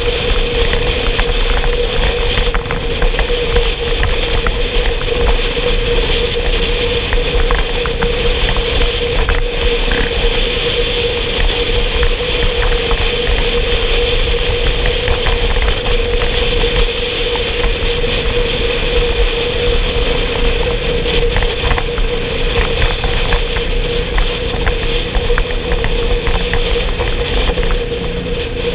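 Motorcycle engine running steadily at a constant cruising speed, with wind rumbling on the bike-mounted microphone.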